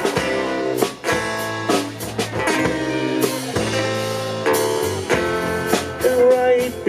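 Live band playing an instrumental passage between sung lines, with guitar over drums.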